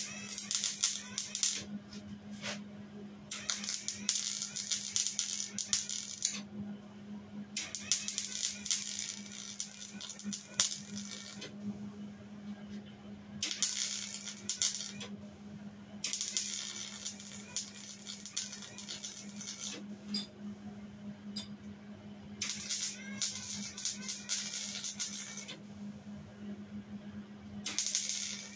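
Wire-feed welder arc crackling as holes and gaps in a Jeep CJ7 body mount are filled with weld. It comes in runs of two to three seconds with short pauses between, over a steady low hum.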